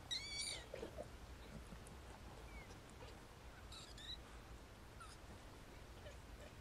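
Newborn kittens mewing in faint, thin, high-pitched squeaks: a short cluster of cries near the start and another about halfway through, with a few fainter ones between.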